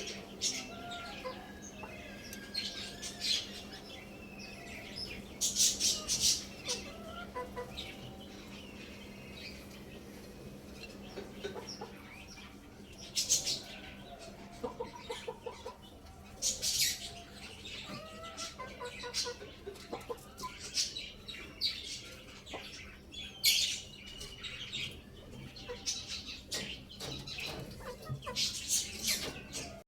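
Chickens clucking, with bird chirps and short bursts of wing flapping scattered through, over a steady low hum.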